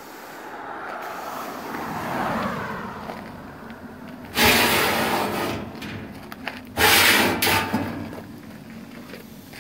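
Stainless steel slide-out water pan in a cabinet smoker being slid along its metal runners: two loud scraping slides of about a second each, the first about halfway through and the second two seconds later, after a softer rustle.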